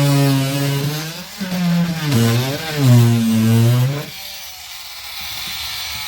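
A power tool's motor running under load, its pitch dipping twice as it bites into the material, then stopping about four seconds in; a fainter steady hiss remains.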